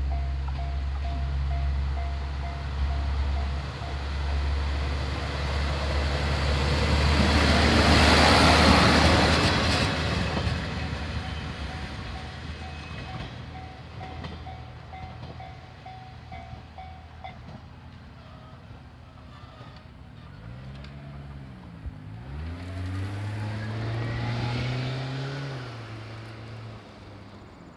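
Diesel railcar of the Yodo Line's Kappa train running over a level crossing: engine drone and wheel noise swell to a peak about eight seconds in and then fade, while the crossing alarm bell rings in a steady pulse until it stops about seventeen seconds in. Near the end a car's engine passes and revs up.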